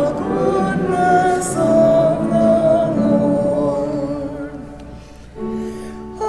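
Church music with singing, held notes over accompaniment. It fades about five seconds in, then a new chord comes in and swells louder near the end.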